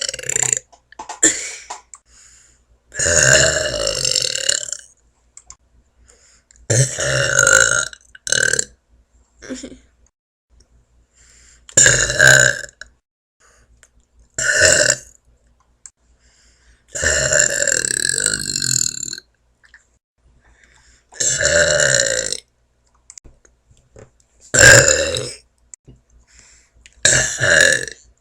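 A run of deliberate, loud burps, about nine of them, some short and some drawn out for about two seconds, with quiet gaps in between.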